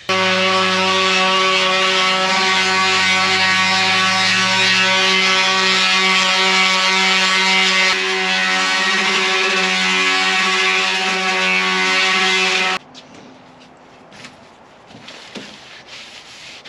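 Background music of sustained, held chords, which cuts off abruptly about 13 seconds in. It is followed by faint rubbing strokes of a pad wiping stain onto a pine board near the end.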